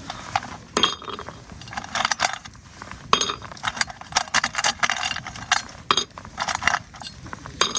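Cooking utensils clinking and tapping against a pot and dishes: a string of light, irregular clinks, a dozen or so over several seconds.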